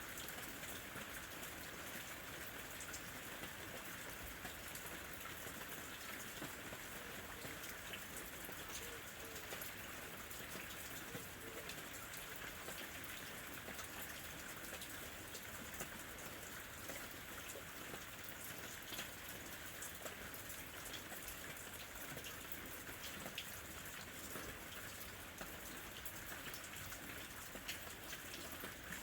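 Steady rain falling, with many individual drops ticking sharply on a hard surface.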